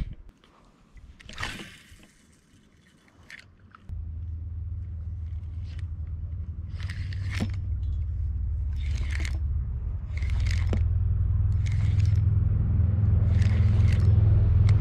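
Wind rumbling on the microphone from about four seconds in, growing stronger. Over it come short scraping bursts about every second and a half, which fit a spinning reel being cranked in spurts as a jig is retrieved.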